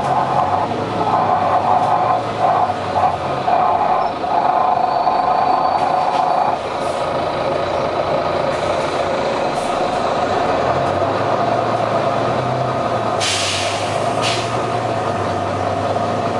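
Volvo B9TL double-decker bus's diesel engine running, with a strong mid-pitched drone that is loud and uneven for the first six or so seconds, then steadier. About 13 seconds in comes a short burst of hiss, the random hissing from the engine that the uploader likens to a dodgy turbo.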